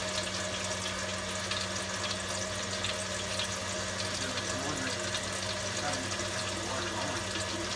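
Kitchen faucet running cold water steadily into the sink and down the drain, heard from the cabinet below the sink. A steady low hum runs underneath.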